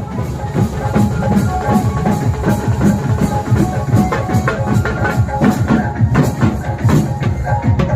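Loud music with heavy drum and bass beats played through a large DJ sound-system rig driven by Ahuja amplifiers.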